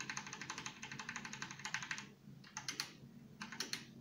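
Rapid run of small plastic clicks, about a dozen a second for two seconds, then a few single clicks: a PC's keyboard and mouse being worked through BIOS menus.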